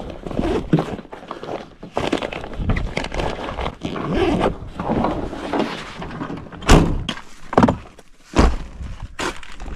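A canvas backpack with a landing net being handled and loaded into a pickup truck's back seat: rustling and scraping, with several sharp thunks from the pack and the open rear door about two-thirds of the way in.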